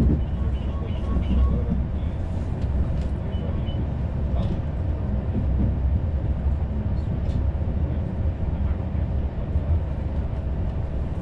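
Running noise inside a CP Intercidades passenger coach as the train pulls into a station: a steady low rumble with scattered clicks from the wheels on the rails.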